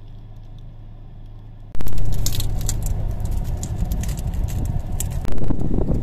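Crinkling plastic bag and crisp youtiao (Chinese fried dough sticks) crackling as they are pulled apart by hand. It starts suddenly about two seconds in over a low steady hum, and gets louder again near the end.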